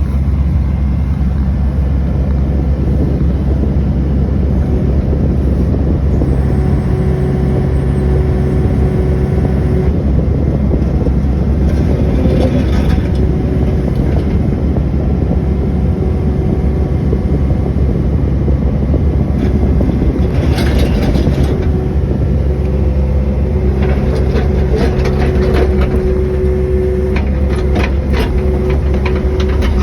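Mini excavator engine running steadily under load, with a hydraulic whine that comes and goes and bouts of scraping and clanking, the loudest about two-thirds of the way through.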